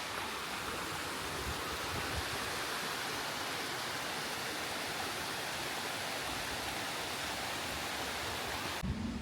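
Steady rush of water from a waterfall, an even hiss with no tone in it, cutting off abruptly near the end.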